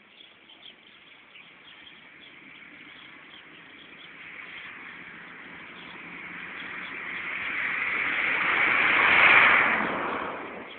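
A vehicle passing by. Its noise builds slowly over several seconds, peaks loudly near the end, then dies away quickly. Birds chirp faintly in the background.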